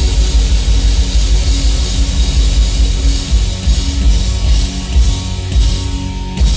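Live rock band playing loud: electric guitar, bass guitar and drum kit, heavy in the low end, with a few hard accented hits near the end.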